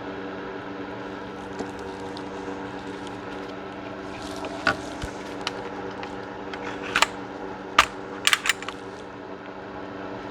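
A handful of sharp metallic clicks and clacks of gun parts being handled and fitted together during reassembly, one a little before halfway and a quick cluster later on, over a steady low electrical hum.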